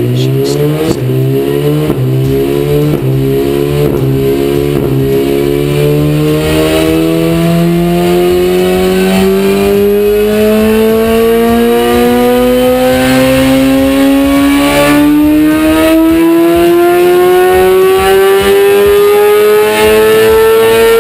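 A 1000 cc inline-four superbike engine at wide-open throttle on a dyno, its revs climbing in one long, even pull with the pitch rising steadily. In the first few seconds the revs rise in short steps before the long smooth climb.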